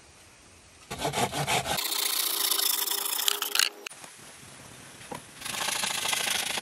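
A saw cutting through wood in quick rasping strokes, starting about a second in, pausing around four seconds in and resuming shortly after five seconds.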